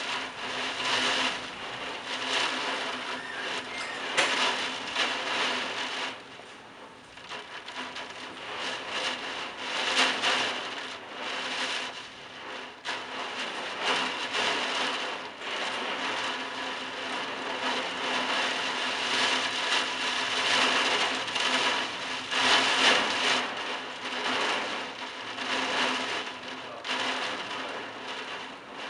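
Heavy wind-driven rain lashing the roof tiles in a thunderstorm, a dense hiss that surges and eases in waves, with a quieter lull a few seconds in.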